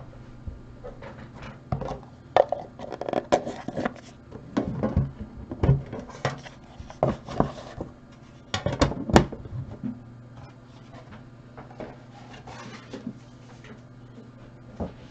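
Knocks, clacks and rustling as cardboard boxes and a metal tin are handled and cleared off a table, busiest in the first two-thirds with a sharp clack a little past the middle. A steady low hum runs underneath.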